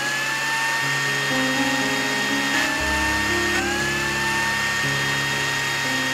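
Miniature electric mixer-grinder running, its small motor giving a steady high whine that sags slightly in pitch about two and a half seconds in and picks up again a second later.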